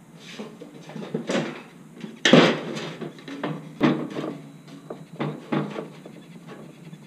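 Radio Flyer wagon tub being shifted and settled on a steel go-kart frame: a series of irregular knocks and scrapes, the loudest about two seconds in.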